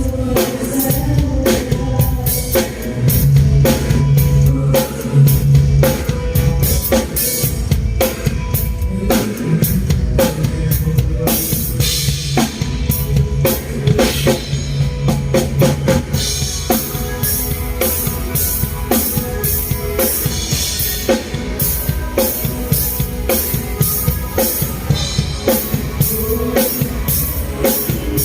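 Drum kit played in a steady groove: bass drum, snare and cymbals.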